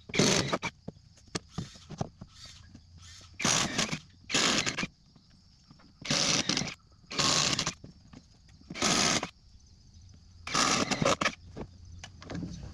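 Repeated short rasping scrapes, each about half a second long and mostly in pairs about a second apart, over a faint steady high hiss.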